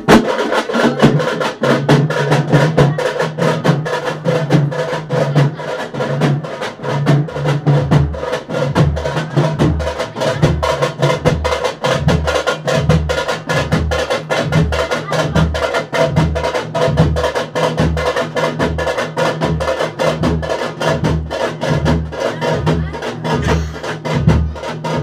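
Loud festival music led by rapid drumming. About eight seconds in, a deep bass beat joins, repeating steadily about one and a half times a second.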